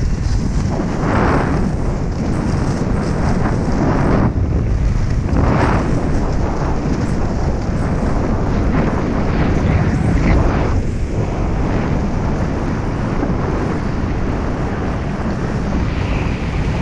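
Heavy wind buffeting the microphone of a camera worn by a skier at speed, with the hissing scrape of skis carving on firm groomed snow swelling several times as the skier turns.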